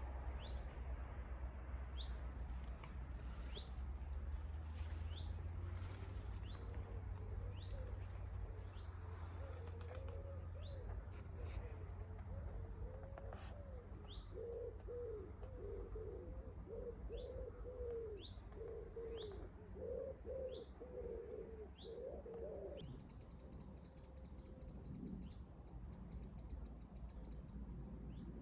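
Wood pigeon cooing in a run of low repeated phrases, over a small bird's short, high chirp repeated about once a second. Near the end another songbird starts a higher warbling song.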